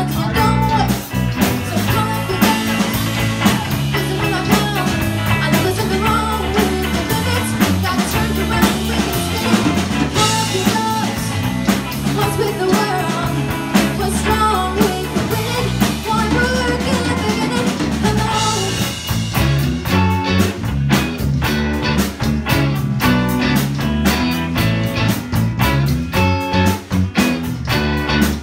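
Live rock band playing: electric guitars, bass and drum kit. The drumming gets busier about two-thirds of the way through.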